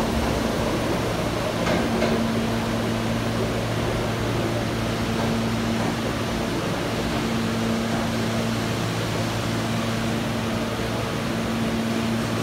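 Steady mechanical hum and rush of a stainless-steel subway train standing at the platform, its air-conditioning units running, with a low drone that holds level throughout.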